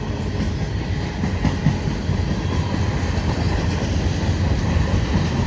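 Freight train rolling past at close range: steady, loud noise of steel wheels on the rails, heaviest in the low range.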